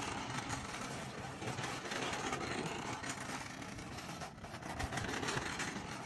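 RipStick caster board's wheels rolling on a concrete patio: a steady gritty rolling noise, dipping briefly about four seconds in.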